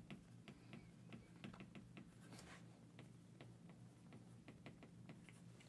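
Faint, irregular taps and scrapes of a stylus writing words on a tablet screen.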